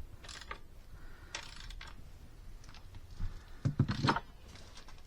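Light, scattered clicks and rattles of small metal parts and hand tools being handled while bolts and screws are fitted on a pit bike's body panels and battery bracket, with a brief voice about four seconds in.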